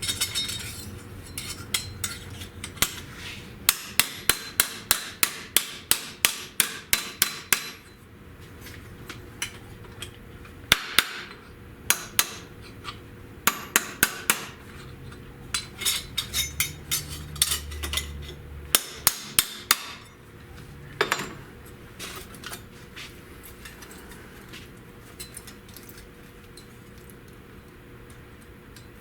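Hammer blows on sheet steel, struck in quick runs of about three a second with short pauses between. The metal is being beaten by hand into shape for a floor-pan patch. The hammering stops about two-thirds of the way through.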